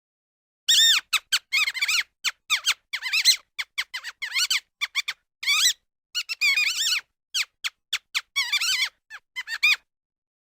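Mouse squeaking: rapid clusters of short, high-pitched chirps, each rising and falling in pitch, separated by brief pauses. They begin about a second in and stop shortly before the end.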